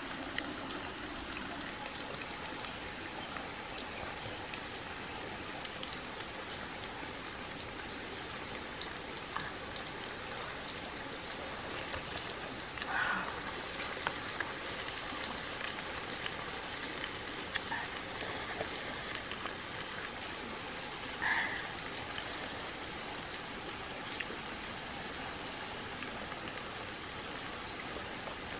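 A steady, high-pitched animal drone starts about two seconds in and holds without a break, over a continuous even hiss. A few faint short chirps or clinks come now and then.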